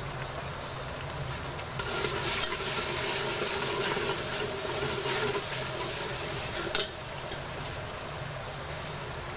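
A steel ladle stirring a watery, bubbling mix of fried onions, tomatoes and green chillies in ghee in a metal pot: liquid sloshing and swishing for about five seconds from about two seconds in, ending with a light clink of the ladle. A steady simmering bubble lies beneath.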